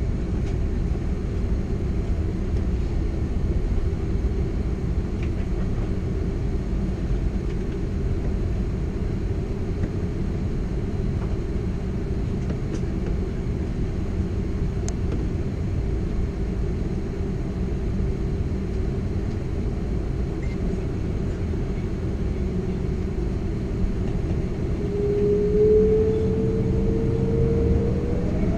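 Airbus A330-200 heard inside the cabin, a steady low rumble while the jet taxis and lines up on the runway. Near the end a whine rises steadily in pitch as the engines spool up for the takeoff roll.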